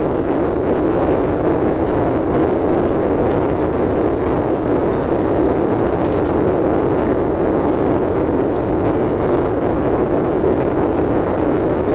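Steady road and engine noise heard inside a moving car's cabin, even throughout with no sudden events.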